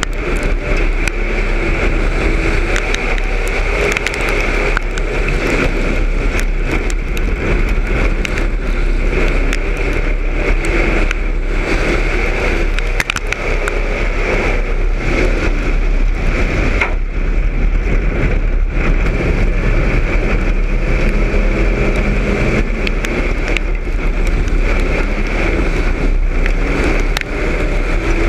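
Street stock race car's engine running hard at racing speed, heard from inside the car as a loud, steady din.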